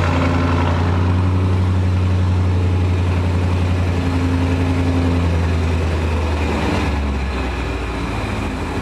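Audi RS7's twin-turbo V8 idling steadily through an exhaust whose silencers have been replaced by straight pipes, set to Dynamic mode. Its low idle note shifts slightly deeper about seven seconds in.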